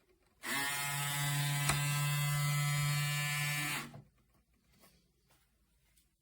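Braun Series 5 electric foil shaver switched on and running with a steady hum for about three and a half seconds, then switched off.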